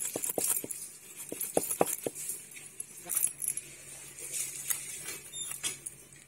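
A snakehead fish being scaled and cut with a curved iron blade: a quick run of sharp scraping clicks in the first two seconds, then softer, scattered scrapes and cuts.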